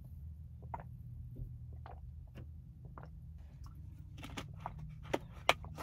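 Gulping water from a plastic bottle, a swallow every half second to a second, over a steady low hum inside a car. Near the end come a few sharper clicks as the plastic bottle is handled.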